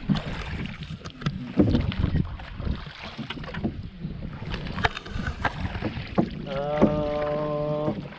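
Wooden rowboat being rowed by hand: irregular knocks of the oars against the hull and oar rests, and splashes of the blades in the water, with wind buffeting the microphone. Near the end comes a steady held tone lasting about a second and a half.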